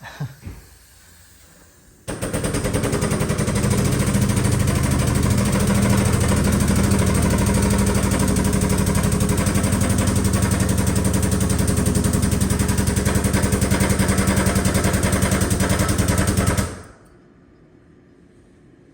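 A loud, rapid mechanical hammering rattle starts abruptly about two seconds in, runs steadily for about fifteen seconds, and cuts off shortly before the end.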